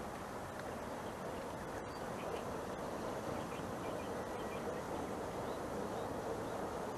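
Steady outdoor background noise with a few faint bird calls between about two and five seconds in.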